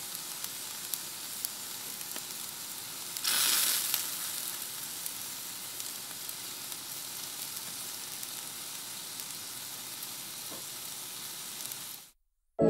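Steady crackling hiss, sizzle-like, with scattered small clicks and a louder rush about three seconds in. It cuts off abruptly just before the end.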